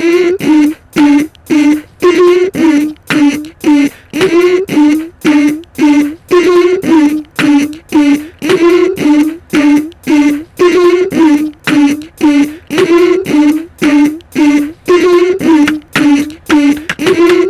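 Beatboxed synth line looped on a Korg Kaossilator 2: short vocal notes on two alternating close pitches, repeating in a steady rhythm of about three a second.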